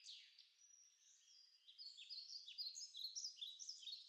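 Faint bird song: a quick whistled sweep, then a run of short, varied whistled notes, many falling in pitch, which grow louder in the second half.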